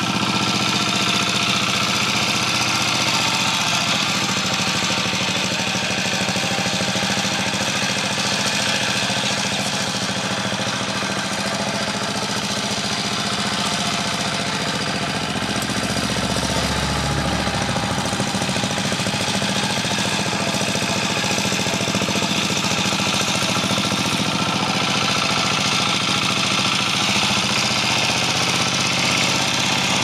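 Hand tractor's engine running steadily with a fast, even chugging beat while it ploughs the paddy, deepening briefly about halfway through.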